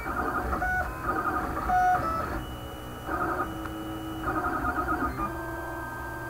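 Stepper motors of a homemade wooden-frame 3D printer whining as the print head travels across the bed, the tones jumping between several pitches every fraction of a second as the moves change.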